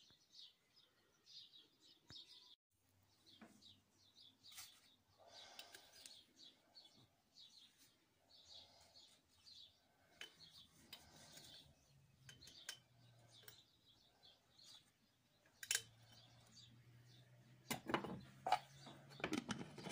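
Faint, repeated chirping of small birds, with a few sharp clicks and knocks of handling near the end.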